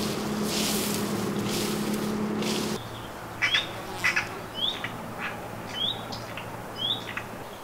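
A steady low hum with repeated bursts of rustling noise that cuts off about three seconds in. After it, a bird chirps: a short, sharply rising call repeated about once a second, with a few light clicks between.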